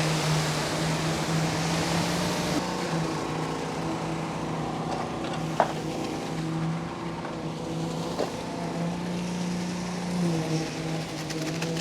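Motor vehicle engine running with a steady drone, its pitch shifting briefly near the end, and a sharp click about halfway through.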